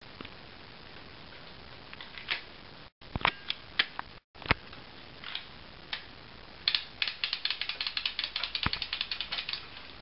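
Plastic clicking from the mechanism of a Lego rubber-band uzi: scattered single clicks, then about two-thirds of the way in a fast, even run of clicks, about eight a second, like a ratchet.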